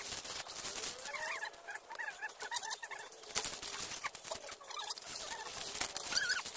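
Domestic fowl giving short calls over and over, over water splashing and plastic dish racks knocking as they are rinsed and shaken out in a basin.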